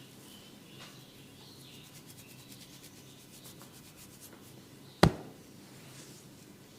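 Close-up massage sounds: soft rubbing with a run of fast, light ticks. About five seconds in comes one loud, sharp snap.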